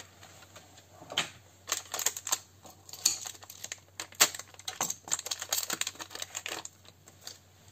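Irregular light clicks and taps of small hard parts being handled, with no motor running.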